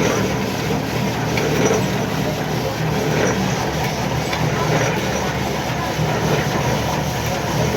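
Steady, continuous drone of heavy machinery running, with no pauses or distinct knocks.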